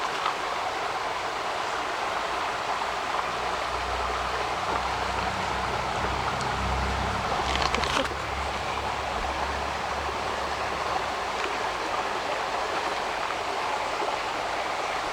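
Small mountain creek running steadily, a constant rush of water. In the middle a low rumble swells and then fades.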